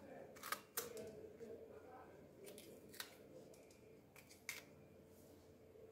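Kitchen knife cutting into a crisp green bell pepper on a wooden cutting board, with the pepper being pulled apart to take out the seeds: faint, irregular crisp cuts and taps, about seven over a few seconds.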